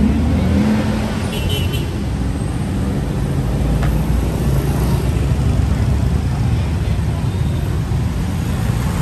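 Street traffic: motor vehicles running by with a steady engine rumble, and voices faint in the background.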